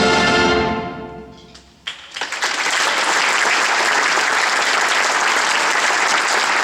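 A band's final held chord dies away over about a second and a half. After a brief hush, the audience starts applauding at about two seconds in, and the applause goes on steadily.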